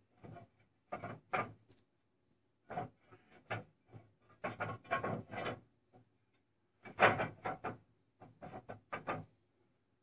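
Clay roof tiles being handled: short scrapes and clacks of tile on tile and on the wooden battens, in five irregular clusters, the loudest about seven seconds in.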